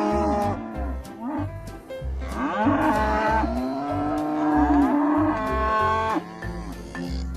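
Cattle mooing: long, drawn-out calls that rise and fall in pitch, one fading out at the start and a long one in the middle, over background music with a steady low beat.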